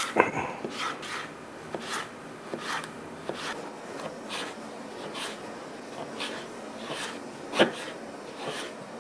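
Kitchen knife slicing a cucumber on a cutting board: a steady run of short crisp cuts, a little faster than one a second, with one louder knock near the end.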